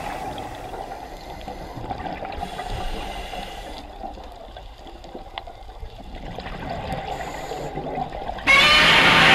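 Muffled underwater water noise from a scuba dive, with bubbling and two short stretches of hiss about two seconds in and about seven seconds in. Music comes back in loudly just before the end.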